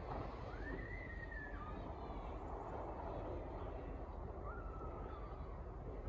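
Steady low background rumble with two faint, drawn-out whistled calls over it. The first rises, holds and falls over about a second; the second, a few seconds later, is shorter and flatter.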